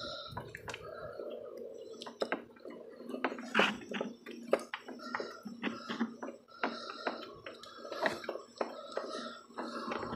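Hands and a tool working on the Duramax's fuel filter head mount: irregular small metallic clicks, taps and knocks, with the loudest knocks about three and a half and eight seconds in.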